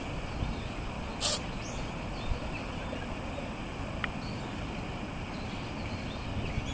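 Calico cat sneezing once, a short sharp burst about a second in.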